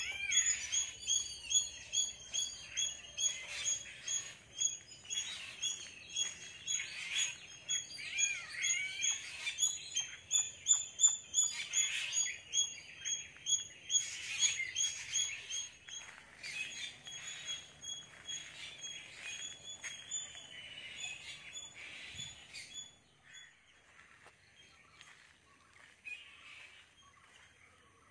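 Many birds calling and chirping together in the trees, a busy chorus of short repeated high notes and chirps that thins out to a few scattered calls near the end.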